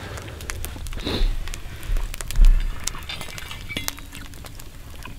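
Wood campfire crackling with scattered sharp pops, under a few dull low thumps between about one and three seconds in, the strongest about two and a half seconds in.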